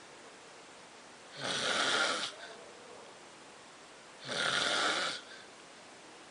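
A sleeping man snoring: two snores, each about a second long, about three seconds apart.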